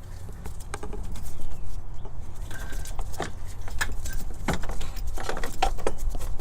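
Scattered light clicks and knocks from a battery cable and its metal terminal being handled and pulled up through an engine bay, getting busier after a couple of seconds, over a steady low rumble.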